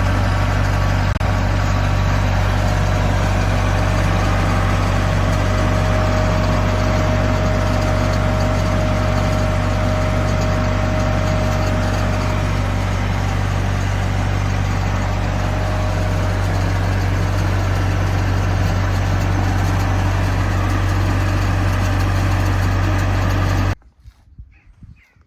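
Mini loader's engine and hydraulic flail mulcher running steadily with the mulcher's hydraulic drive switched on, a loud, even low drone with a faint whine over it for part of the time. It cuts off suddenly near the end.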